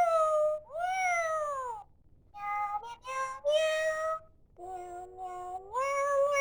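Pets Alive Smitten Kitten electronic toy cat playing a string of its recorded sounds: several meows that glide up and down, and short stepped tones, with brief gaps between them.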